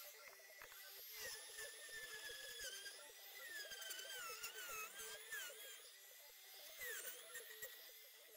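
Handheld trim router running at high speed with a thin whine. The pitch sags several times as the bit bites into the wooden frame and recovers as the load eases, with the sharpest dip about seven seconds in.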